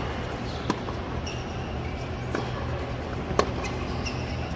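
Tennis ball struck back and forth by rackets in a rally, sharp pops a second or two apart, the loudest about three and a half seconds in, over the steady murmur of a stadium crowd with faint shoe squeaks.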